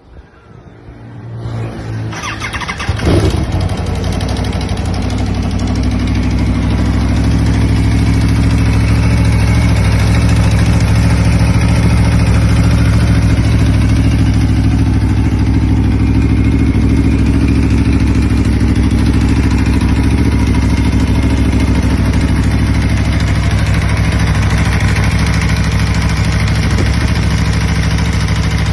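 Aprilia Tuono V4 motorcycle's V4 engine cranking, catching about three seconds in with a brief rise, then idling steadily. The running carries the abnormal noise of a burnt engine bushing (bearing shell).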